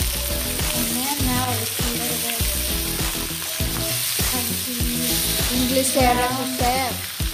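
Pork, onion and tomato sizzling in a nonstick wok as a silicone spatula stirs them, over background music with a steady beat.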